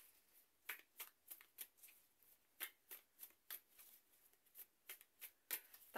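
Faint, irregular soft clicks, about three a second: a tarot deck being shuffled by hand.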